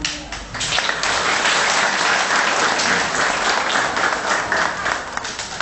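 A class applauding, many hands clapping together: it starts just after the opening, fills out within the first second and goes on steadily.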